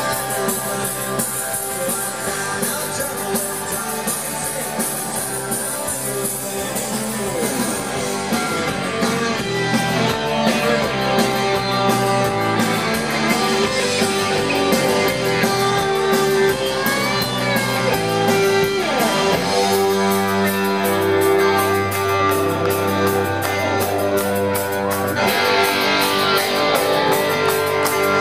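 Live rock band playing: electric guitars, drums and keyboards, heard from the audience. The music gets a little louder about ten seconds in, and brighter near the end.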